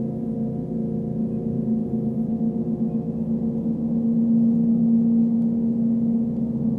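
Large chau gong, dark-centred and dark-rimmed, sounding a sustained deep humming wash with a slow pulsing shimmer, swelling louder about four seconds in.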